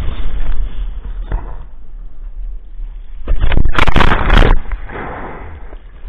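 Wind buffeting the action camera's microphone over rushing water while kiteboarding, with a steady low rumble. About three seconds in, a loud burst of splashing water hits the camera and board for about a second, then the wind noise settles back.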